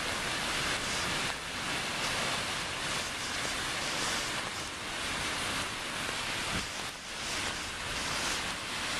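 Steady outdoor rushing noise with no distinct events, strongest in the upper range, with small dips in loudness.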